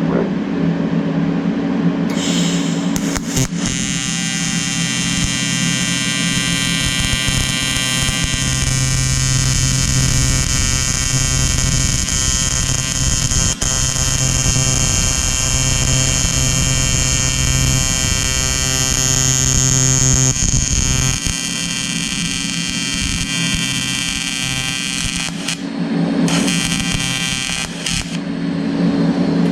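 Electric welding arc buzzing steadily as it lays a bead on a cracked cast aluminum foot peg. The arc strikes about two seconds in and runs for over twenty seconds, then comes on again briefly near the end, over a steady low hum from the welder.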